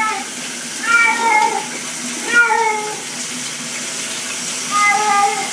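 Domestic cat meowing repeatedly, a drawn-out meow every second or two, over the steady hiss of running shower water.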